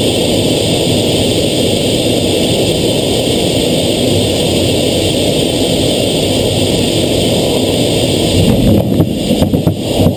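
Jet fighter's engines and rushing air, a steady loud noise heard inside the cockpit on final approach to an aircraft carrier. About 8.5 seconds in, the jet slams onto the deck and is caught by the arrester wire: a heavy jolt, then a run of quick knocks and rattles as it is hauled to a stop.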